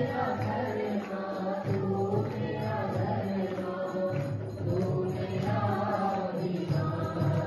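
A group of young men and women chanting a devotional song together in unison.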